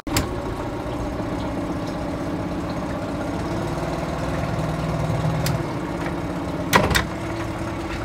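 Newly installed Tohatsu 20 hp outboard idling steadily on its first run, its note swelling slightly about four to five seconds in. A sharp double knock comes just before seven seconds.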